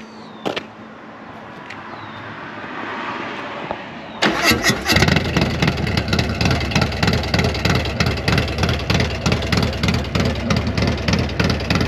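Modified V-twin motorcycle engine, with an aftermarket exhaust and a performance cam, being started: a quieter lead-in, then it fires about four seconds in and runs loud with an uneven, pulsing beat.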